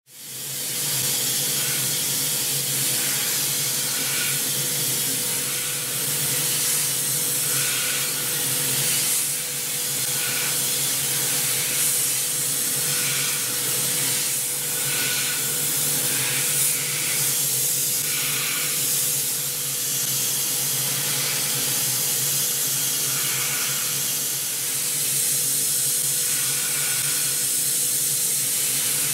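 CNC mill cutting tough pitch copper with a small carbide corner-radius end mill (NS Tool DHR237R) spinning at 12,000–14,000 rpm. A steady hiss of oil mist spray is heard, with a steady machine tone underneath, starting as the cut comes in at the beginning.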